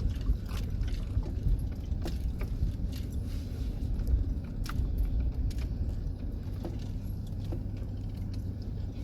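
Van driving, heard from inside the cab: a steady low rumble with scattered rattles and knocks from loose things jostling inside.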